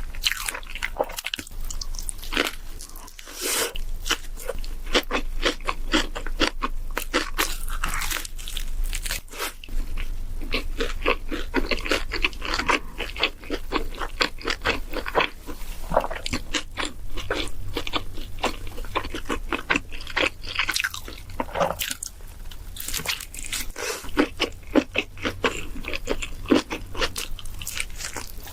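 A person chewing and biting crunchy food close to the microphone, with dense, continuous crackling bites and chews.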